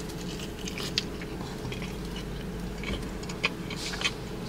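Someone chewing a bite of sauced fried chicken wing close to the microphone: wet mouth sounds with a few sharp crunches, one about a second in and two near the end.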